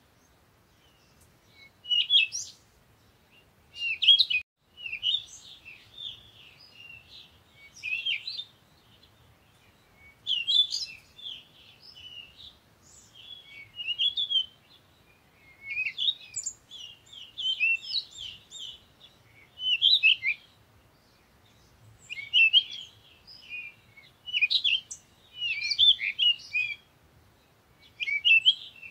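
Small birds chirping and twittering: clusters of quick high chirps every second or two, with short pauses between.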